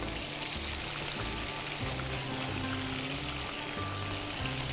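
Chicken tikka pieces sizzling in oil in a nonstick frying pan as they are turned and put back in. Background music with held low notes plays throughout.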